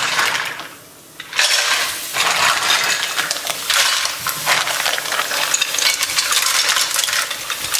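Raw mussels poured by the handful into an enamelled cast-iron casserole, their shells clattering and clinking against each other and the pot. A short clatter comes at the start, then a brief lull, then steady clattering from about a second and a half in.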